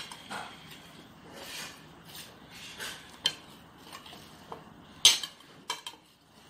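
A metal spoon stirring fruit salad in a ceramic bowl: soft scraping and a string of short clinks against the bowl, the loudest about five seconds in.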